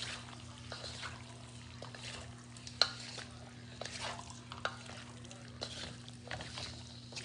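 Two wooden spatulas stirring and tossing cubed chicken in a metal wok, with irregular scrapes and knocks of wood on the pan. The sharpest knock comes about three seconds in, over a steady low hum.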